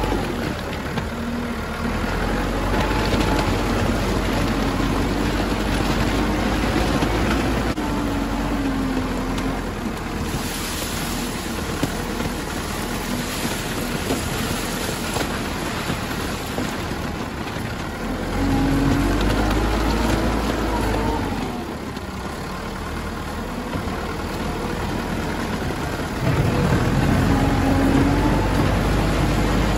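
Wheeled loader's engine running under load as the machine drives over crushed stone, its pitch rising and falling as the throttle changes, louder about two-thirds of the way through and again near the end, with the tyres rolling and grinding over the loose stone.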